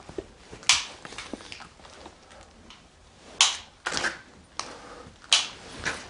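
A handful of short, sharp scuffs and scrapes, about six in all and spaced unevenly: handling and footstep noise from someone moving among sheet-metal ducts on a gritty concrete floor.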